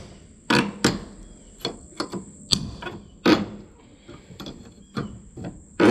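Hammer blows on the wooden boards of a porch being torn out: about a dozen sharp, irregular knocks, some hard and some light, the hardest about two and a half and three and a half seconds in.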